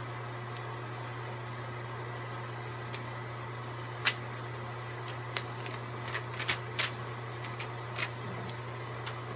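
Plastic carrier sheets crinkling and crackling as they are peeled off heat-pressed vinyl lettering on a T-shirt: a scatter of short, sharp clicks starting about three seconds in. Underneath is a steady low hum.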